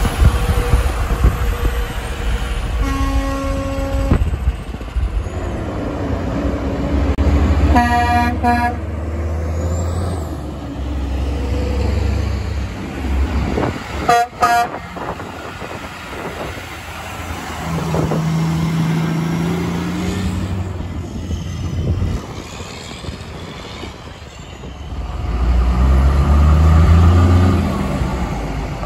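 Trucks blowing Hadley air horns as they pass: one blast about three seconds in, another around eight seconds, then two short toots around fourteen seconds. Heavy diesel engines and traffic run underneath, and a truck engine pulls away loudly near the end.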